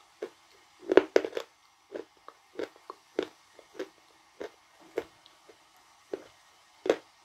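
Close-up chewing of a mouthful of pasty blue Uzbek edible clay: sticky, wet mouth clicks and lip smacks, irregular, about two a second.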